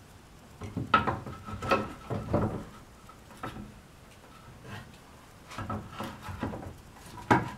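Wooden knocks and scraping as a curved wooden brace is worked by hand into its joint on a wooden post, sliding and seating it. Sharp knocks come about a second in, a few more over the next second and a half, and a loud one near the end.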